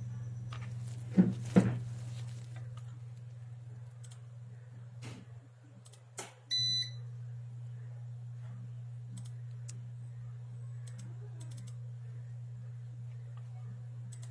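Steady low electrical hum from a computer setup. Two sharp clicks come about a second in. A short electronic beep sounds about halfway through, after which the hum carries on slightly changed.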